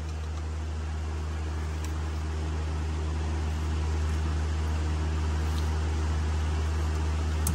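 A steady low mechanical hum over a hiss, slowly growing louder, with a sharp click near the end.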